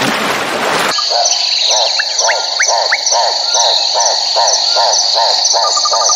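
A second of rushing noise, then an animal chorus: a call that sweeps down in pitch, repeating about three times a second, over a steady high-pitched trill.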